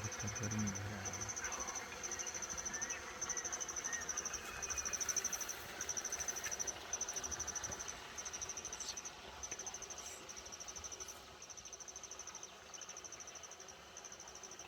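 An insect calling in a steady series of high, pulsed trills, each under a second long, repeating about once a second.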